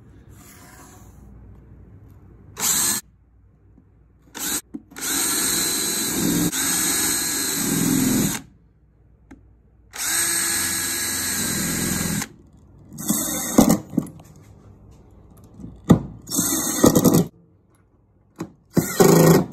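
Power drill running in repeated bursts, boring pilot holes in wooden boards. The two longest bursts last about two to three seconds each. Near the end, shorter, choppier bursts come from a cordless drill driving screws into the wood.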